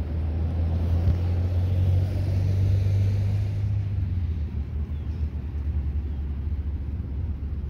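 Steady low rumble of a running motor, loudest in the first few seconds and easing slightly about halfway through.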